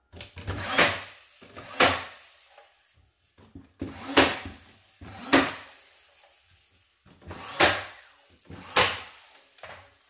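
DeWalt cordless nailer firing six nails into cedar wall boards, two shots about a second apart, three times over, each a sharp snap with a knock into the wood.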